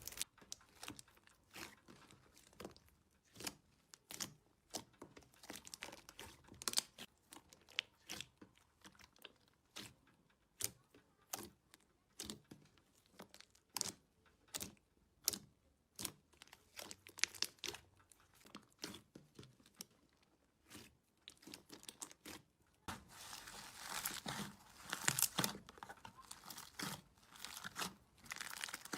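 Slime being squeezed and worked by hand, giving off irregular sharp crackles and pops, which become a denser stretch of crackling in the last few seconds.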